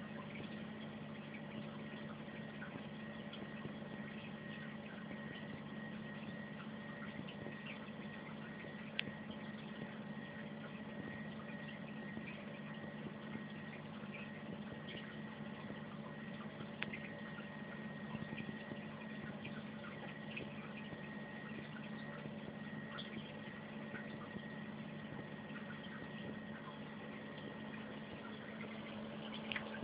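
Aquarium pump running with a steady hum over faint trickling water, with a few small clicks scattered through.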